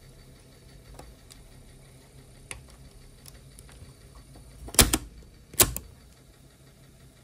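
Mechanical clicks from a 1980 Sony TC-K45M cassette deck over a steady low hum: a few light clicks, then two loud double clacks a little under a second apart.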